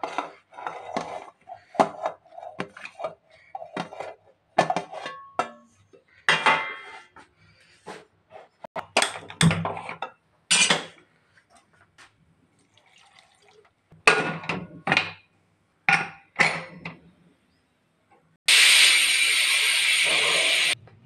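Scattered clinks and knocks of vegetables and hands against an aluminium pressure cooker pan as ingredients are added. Near the end a pressure cooker whistle lets off steam in a loud, steady hiss for about two seconds, then cuts off suddenly.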